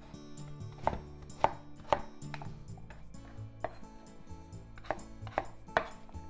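Kitchen knife chopping through peeled potato onto a wooden cutting board: about eight sharp, irregularly spaced strikes as it is diced into cubes, over soft background music.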